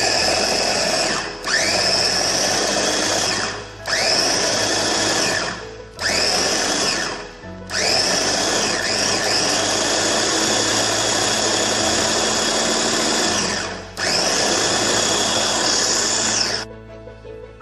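Electric mini food chopper with a press-down motor top, pulsed six times, each run spinning up with a quick rising whine; the longest run lasts about six seconds in the middle. It is chopping fresh herbs with garlic cloves, salt and oil into a paste.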